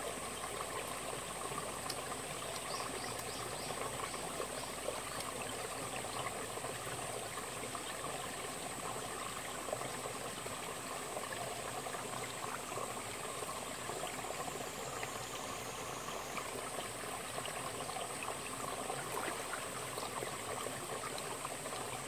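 Mountain stream running steadily over rocks, an even rush of water, with a steady high-pitched insect drone above it.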